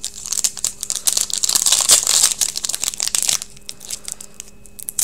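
A foil trading card pack wrapper crinkling and tearing as it is ripped open by hand, a dense crackle that dies down about three and a half seconds in.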